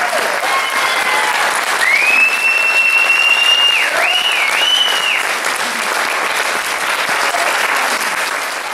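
Audience applauding the cast's bow, with dense, loud clapping throughout. A long high whistle comes from the audience about two seconds in, then two shorter ones.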